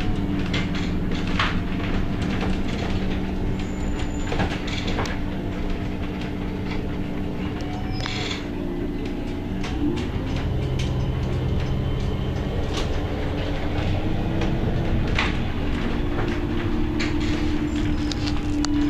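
City bus running, heard from inside the cabin: a steady engine and drivetrain drone that shifts in pitch about ten seconds in and again around fifteen seconds in, with a few short rattles and knocks.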